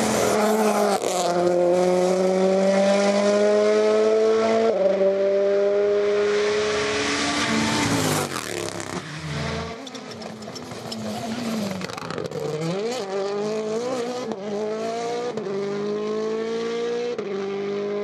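Turbocharged four-cylinder WRC Rally1 rally cars at full throttle on a tarmac stage. The first car's engine pitch climbs through the gears, stepping down at an upshift about five seconds in. After about eight seconds a second car takes over, its revs dipping and rising sharply several times.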